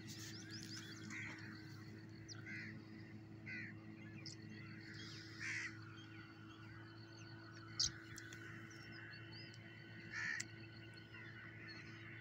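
Birds calling at the waterside: short harsh calls every second or two, with faint high chirps between them, over a steady low hum. A single sharp click about eight seconds in.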